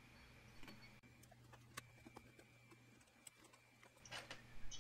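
Near silence: room tone with a few faint, light clicks, and a short patch of small knocks about four seconds in.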